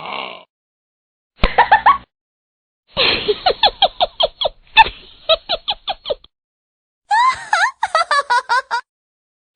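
A run of short sound-effect clips, one after another with brief silences between them: bursts of rapid, pitched, laugh-like pulses, several a second.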